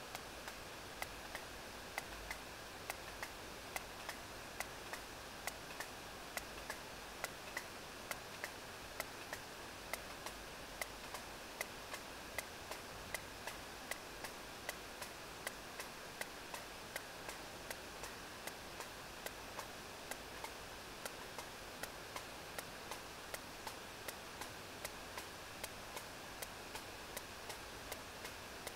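Sperm whale's regular echolocation clicks, about one a second, recorded by a deep hydrophone over a steady hiss of background noise.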